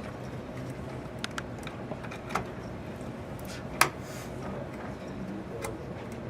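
Scattered light clicks and knocks of computer parts being handled inside an open PC case, with one sharper click near four seconds in, over a steady low hum.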